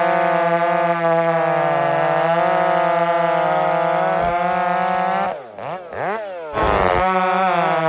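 Two-stroke chainsaw running at high revs. About five and a half seconds in, the revs drop sharply and climb back up twice before settling at full speed again.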